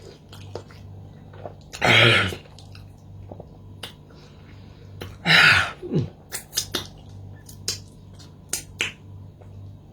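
Close-up eating mouth sounds: many sharp lip smacks and tongue clicks, with two louder breathy bursts about two seconds and about five seconds in.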